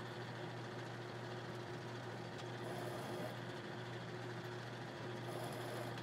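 Small metal lathe running steadily with a low motor hum while single-point cutting a 3/8-inch fine thread, the tool fed straight in with the cross slide. The sound brightens briefly about three seconds in and again near the end.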